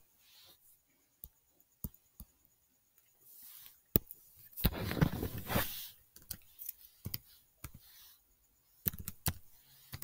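Scattered sharp clicks of a computer mouse and keyboard, a few at a time, with a short rustle about halfway through.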